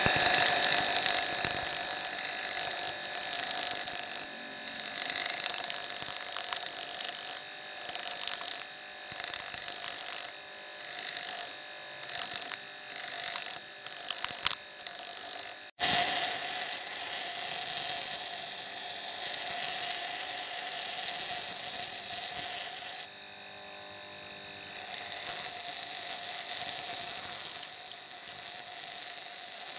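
Rusty steel axe head ground on a bench grinder's abrasive wheel: a loud, high-pitched grinding whine while the steel is pressed to the wheel. It is broken by short gaps, about once a second midway through, as the blade is lifted off, and by one longer pause near the end.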